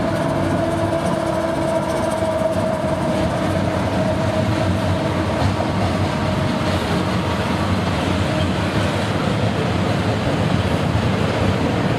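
Freight train passing close by: a steady tone from the locomotive fades over the first few seconds as it goes past, then the freight cars roll by with a continuous rumble of wheels on rail.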